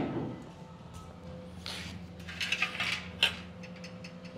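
Steel garage door track being handled on a concrete floor: light metallic clinks and scrapes, with a sharper clink about three seconds in, over a low steady hum.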